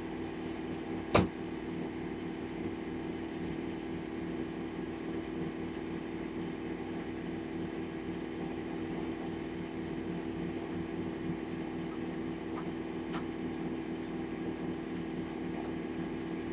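A steady machine hum, with one sharp click about a second in and a few faint clicks later on.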